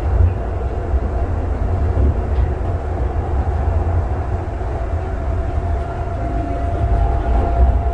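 Calgary CTrain light rail car running along the track at speed, a steady low rumble heard from inside the car. A faint steady whine comes in about halfway through.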